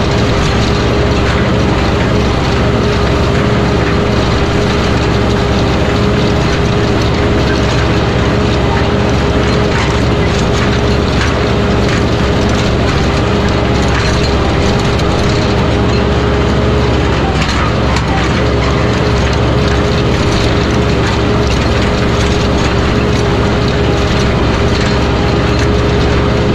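83-horsepower Mahindra diesel tractor running steadily under heavy load while pulling a nine-shank chisel plow through compacted ground, with the plow frame and hitch clattering over the rough soil. The engine note dips briefly about two-thirds of the way through.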